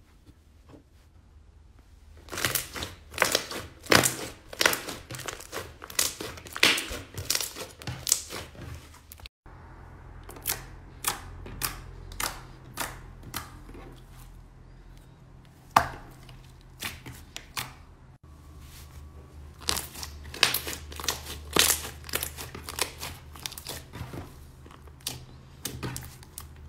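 Slime squished, poked and stretched by hand, making a run of sharp wet pops and clicks, several a second, after a quiet start. There are two brief gaps, about nine and eighteen seconds in.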